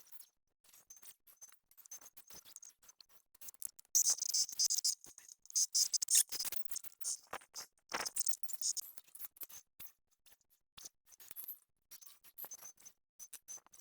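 A metal 1/14-scale RC construction machine's bucket scraping and crunching through dirt and small stones, with rapid clicks and gritty clatter, loudest in a stretch from about four to nine seconds in. A faint high motor whine comes and goes underneath.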